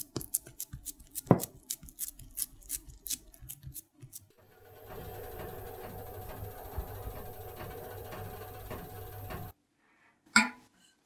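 Fingers pressing and patting raw ground-beef meatloaf mixture into a ceramic terrine dish, a quick irregular run of soft sticky taps. This is followed by the steady hum of a running oven, which cuts off suddenly. Near the end there is a single sharp clack as the hot ceramic terrine dish is set down on a wire cooling rack.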